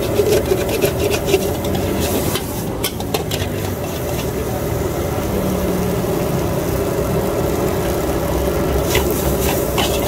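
Long metal spatula scraping and tossing fried rice around an aluminium wok, with bursts of scraping strokes at the start and again about nine seconds in, over a steady roar.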